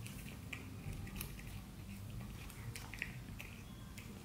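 A cat chewing and crunching small dried fish, with irregular sharp crunches about twice a second.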